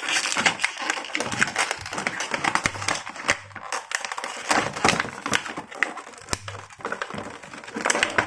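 Plastic packaging crinkling and clicking in quick, irregular snaps as an action figure is worked out of its box.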